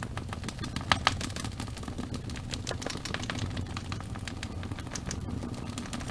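Wood fire in a fireplace crackling: scattered sharp pops and snaps over a steady low rumble of the flames, with two louder pops about a second in.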